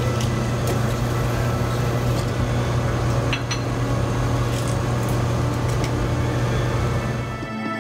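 Franke automatic coffee machine running with a steady hum as it dispenses coffee for a latte into a mug, with a few light clicks; the hum cuts off near the end.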